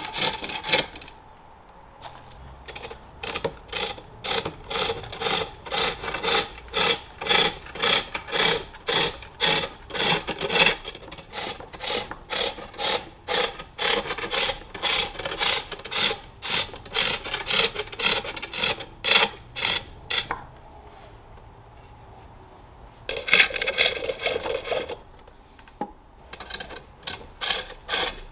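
Forged steel hook tool cutting into a wooden bowl on a pole lathe: a rhythmic train of short scraping cuts, one with each turn of the reciprocating lathe. The cuts stop briefly near the start and again for a couple of seconds about two-thirds through.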